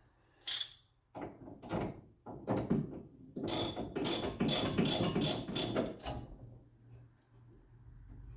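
Hand tools working on a car's steering linkage: a run of short mechanical clicks and clatters, a few scattered at first, then a quick series of them from about three and a half to six seconds in.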